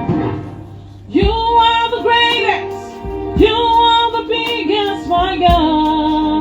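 Live gospel worship music: a singer holds long, wavering notes over a steady backing band with a low drum beat about every two seconds.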